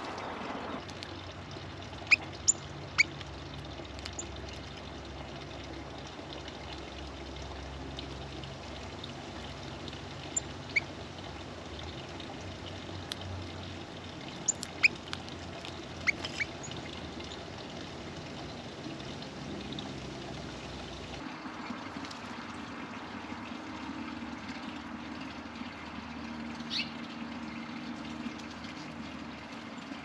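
Steady outdoor background noise with a few short, sharp chirps from small birds scattered through it; the background changes abruptly about two-thirds of the way through.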